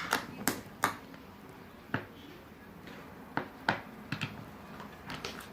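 Butter slime made from PVA glue and light modelling clay, squeezed and stretched by hand, giving about ten irregular sharp clicks and pops, three of them in the first second.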